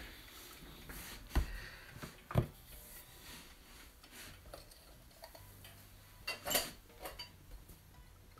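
A bristle paintbrush scrubbing thick paint and gesso across a textured canvas in short strokes, with two sharp knocks about a second and a half and two and a half seconds in.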